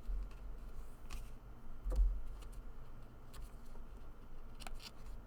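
Oracle-deck cards being handled and laid down one after another: a few faint light clicks of card stock, with low bumps from the handling, the strongest about two seconds in.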